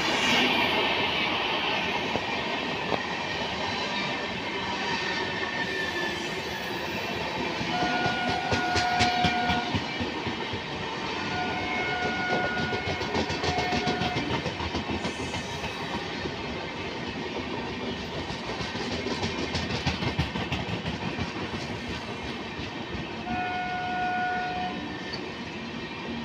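Shatabdi Express passenger coaches passing at speed, a steady rush and rumble of wheels on rail with a rhythmic clatter over the rail joints. A single-note train horn sounds three times: about a third of the way in, again soon after, and near the end.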